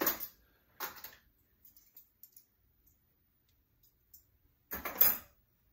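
Metal cutlery clinking as pieces are dropped into a kitchen cutlery drawer: a short clatter at the start, another about a second in, a few light clicks, and the loudest clatter near the end.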